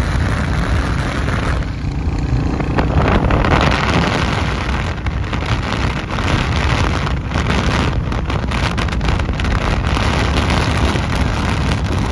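Wind rushing and buffeting over the microphone of a motorcycle riding along the road at speed, with road and vehicle noise mixed in.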